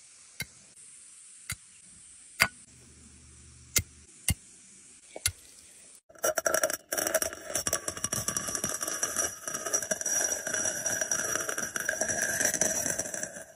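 Apple snail eggs being crushed: first about seven sharp, separate pops spaced around a second apart, then from about six seconds in a dense, continuous crackling as a whole egg clutch is crushed.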